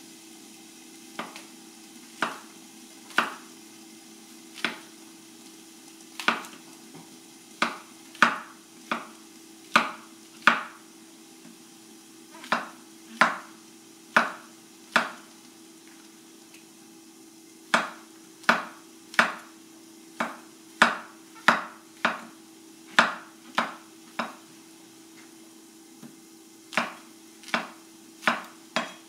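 Cleaver slicing button mushrooms on a wooden cutting board: single sharp knocks of the blade on the board, about one a second in uneven runs with a couple of short pauses, over a faint steady hum.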